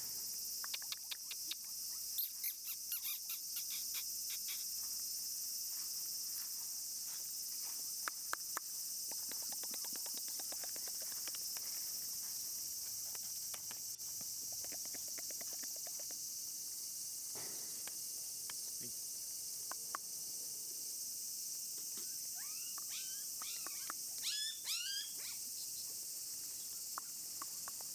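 Steady high drone of summer insects, with scattered short chirps and ticks. Near the end comes a quick run of high squeaks that rise and fall.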